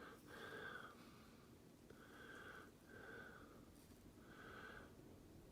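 Near silence with a few faint breaths, each about half a second long, roughly one a second.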